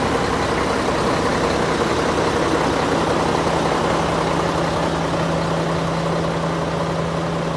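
Mack truck's diesel engine idling steadily with an even low hum.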